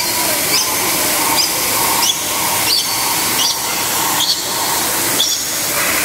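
Steady rush of water pouring over a small waterfall, with a bird's short, high chirps repeating about eight times, roughly one every three-quarters of a second.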